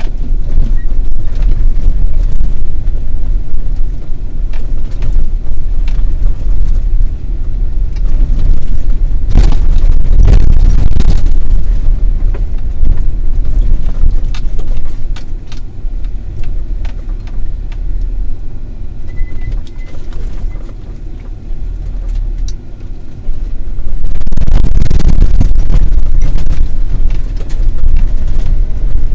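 An off-road vehicle driving over a rough dirt track: a loud, low rumble of engine and tyres with scattered knocks and rattles from the bumps. It eases off for a while past the middle and grows louder again near the end.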